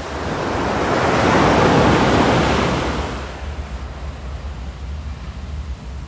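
Pacific Ocean wave breaking and washing up the beach: a surge of surf that builds, peaks about two seconds in and dies away about three seconds in, leaving a lower steady wash of surf.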